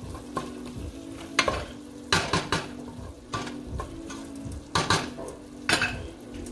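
Wooden spatula stirring and scraping vegetables sautéing in oil in a pot, with a sizzle and a few louder scrapes and knocks against the pot, over a steady low hum.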